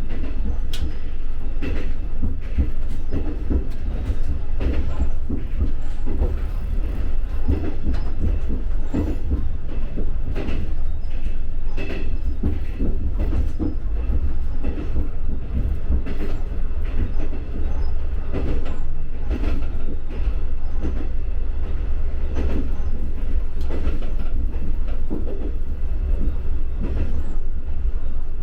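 Diesel railcar running along the track: a steady low rumble of engine and wheels, broken by frequent knocks and clicks from the wheels passing over rail joints.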